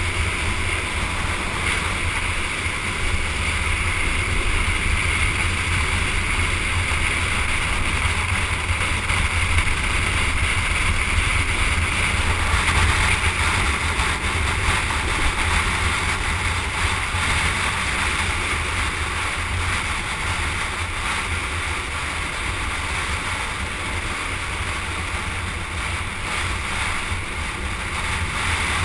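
Street luge running fast downhill on asphalt: a steady rush of wind buffeting the microphone over the hum of the wheels rolling on the road, a little louder in the middle.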